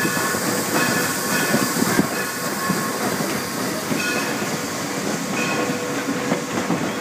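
Southern Pacific 2472, a 4-6-2 steam locomotive, running along the track, heard from its cab: a steady clattering rumble with hiss and faint high whines that come and go.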